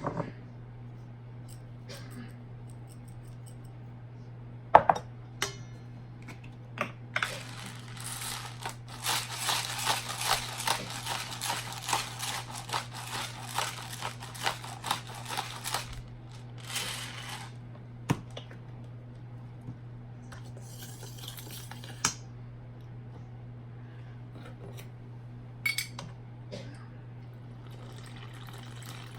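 Kitchen utensils knocking and scraping in a bowl: a sharp knock about five seconds in, then about nine seconds of rapid scraping and rattling, and scattered clinks after that. A steady low hum runs underneath.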